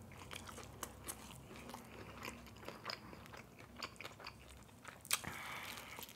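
Faint eating sounds of crispy fried chicken: chewing with scattered small crunches, and a sharper crunching bite about five seconds in.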